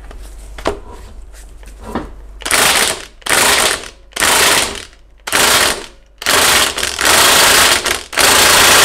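Cordless Hitachi impact driver hammering on an alternator pulley bolt in a vise, trying to undo it. After a couple of faint clicks, it runs in about seven bursts of half a second to a second each, with short pauses between them.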